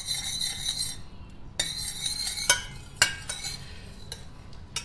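Metal spoon scraping around the bottom of a stainless steel saucepan as a little oil is stirred, in spells broken by several sharp clinks of the spoon against the pot.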